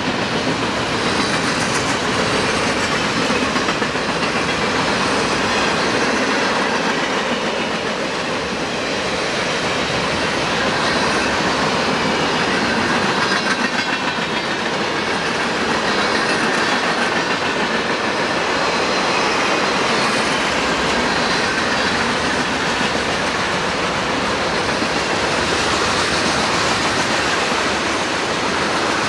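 CSX-powered freight train rolling past close by: a loud, steady noise of wheels running on the rails.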